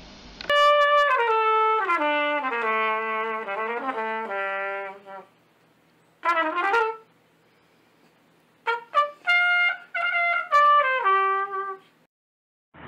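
Trumpet playing: a long run of notes stepping downward in pitch, then after a pause a short phrase, and after another pause a string of short notes that falls away at the end.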